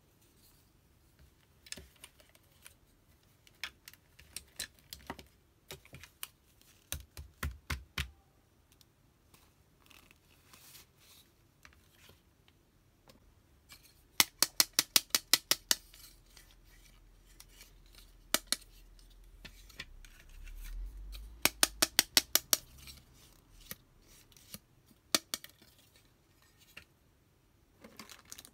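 Hands handling small plastic doll toys and accessories: scattered clicks and taps, with two quick runs of sharp tapping about halfway through and again about three quarters through.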